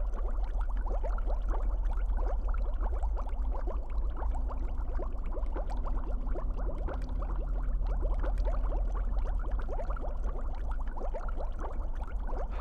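Continuous bubbling liquid, many small bubbles popping in quick succession, over a steady low hum.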